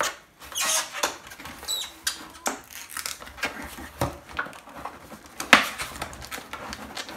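The cardboard box of an iPad Air being handled and opened: a string of rustles, scrapes and taps, with one sharp click about five and a half seconds in.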